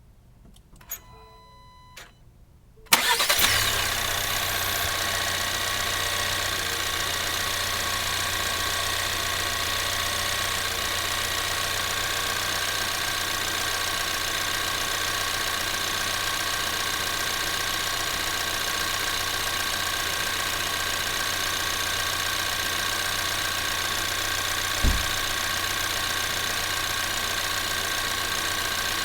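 Ford Maverick's 2.0L EcoBoost turbocharged four-cylinder doing a warm start: after a few quiet seconds with a couple of faint clicks, it cranks and catches about three seconds in with a brief flare, then settles into a steady, even idle, the normal sound of this engine. A brief low thump comes near the end.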